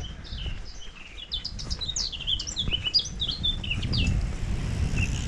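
Songbirds chirping and twittering, a quick jumble of short high notes that is busiest in the middle. A low rumble builds beneath it in the second half.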